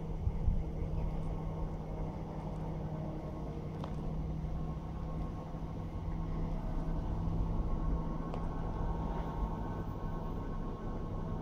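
Wind buffeting the microphone as a fluctuating rumble, over a steady low hum.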